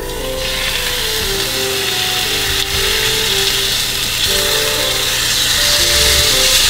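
Steak sizzling in a stainless, coated frying pan on an induction hob, frying without oil. The hiss comes up about half a second in and grows louder toward the end, with soft background music beneath.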